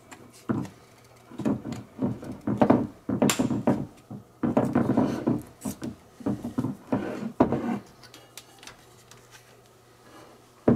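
Handling noise from two IDE hard drives and their ribbon cable on a workbench: irregular knocks and rubbing as the drives are picked up, set down and turned over, stopping about eight seconds in.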